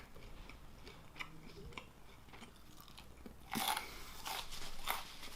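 Close-up chewing of a dried churro, with soft crunching at first and louder crunchy bites starting about three and a half seconds in.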